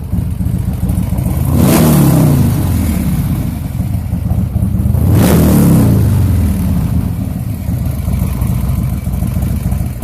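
Big-cam Buell motorcycle's V-twin engine idling, blipped twice, each rev rising quickly and settling back to idle. It is run to show a noise that appeared after a few hard launches.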